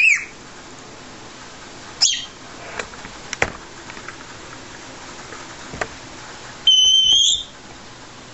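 Congo African grey parrot whistling with a few clicks: a quick rising whistle at the start, a falling whistle about two seconds in, and a loud, steady, high beep-like whistle lasting under a second near the end.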